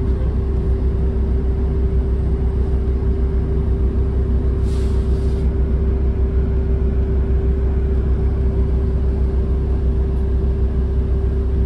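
Steady low rumble and hum of a road vehicle heard from inside while it moves slowly in traffic, with one short hiss about five seconds in.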